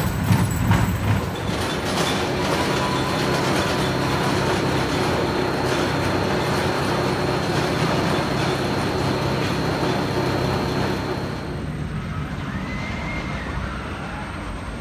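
Arrow looping roller coaster train on its chain lift hill: a steady mechanical running noise with a low hum, with a few sharp knocks in the first two seconds. The noise drops and turns duller about twelve seconds in.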